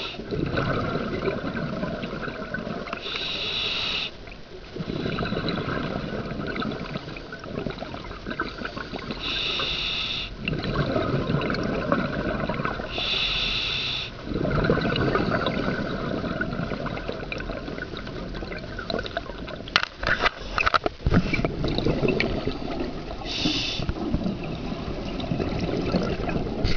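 Scuba diver breathing underwater through a regulator: about four short hissing inhales several seconds apart, each followed by a long, dense rush of exhaled bubbles. A quick cluster of sharp clicks about two-thirds of the way through.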